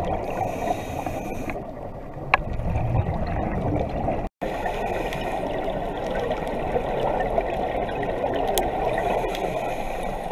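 Muffled underwater water noise heard through a GoPro's waterproof housing, with gurgling and a few faint clicks. It cuts out for a moment about four seconds in.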